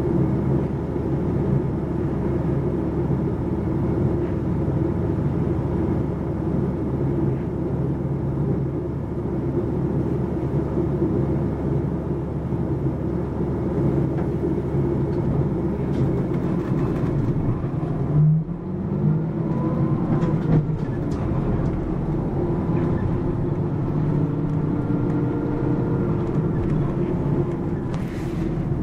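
Mitsubishi Fuso PA-MK25FJ route bus under way, heard from inside the cabin: a steady diesel engine drone with road rumble. About two-thirds of the way in, the engine note dips briefly and then climbs again.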